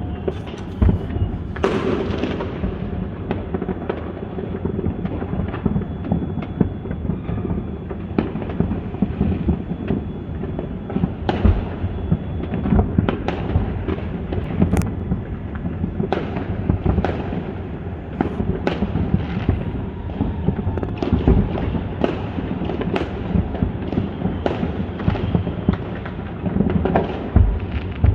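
Aerial fireworks bursting without pause: a dense run of sharp bangs, many overlapping, over a continuous low rumble of more distant bursts.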